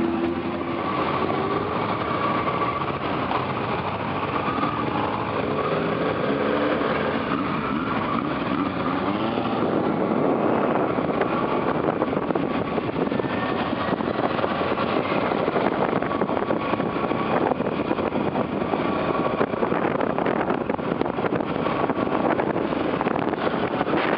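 Motorcycle engine running steadily while riding, under a dense rush of wind and road noise.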